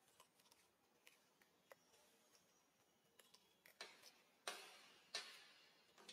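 Macaque biting and chewing a crunchy piece of food: faint scattered clicks, then a few louder crunches about four to five seconds in.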